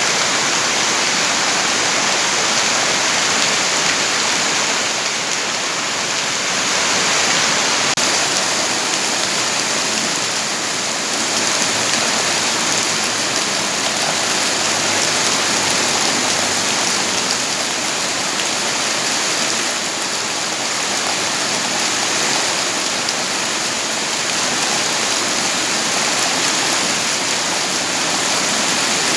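Steady heavy rain falling, a dense even hiss of drops without breaks.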